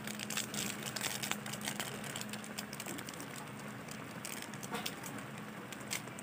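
Chicken afritada in tomato sauce simmering in a wok: a dense run of small irregular pops and crackles over a low steady hum.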